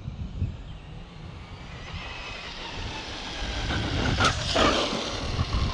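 Arrma Senton RC truck on a speed run: its electric motor whine and tyre noise build as it approaches, loudest about four seconds in as it passes, then fade away.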